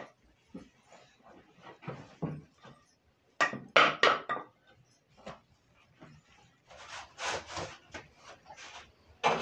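Irregular wooden knocks and rubbing from a rolling pin and kitchen utensils as wheat-flour roti dough is rolled out and handled, with the loudest cluster about three and a half seconds in.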